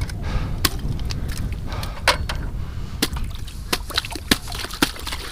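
Wind rumbling on the microphone, with many scattered sharp knocks and clicks and some sloshing water.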